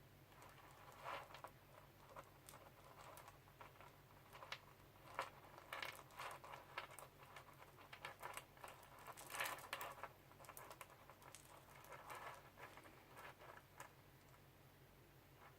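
Faint, irregular small clicks and rustles of beads and stretch elastic cord being handled as the beads are threaded, the clicks coming in scattered clusters.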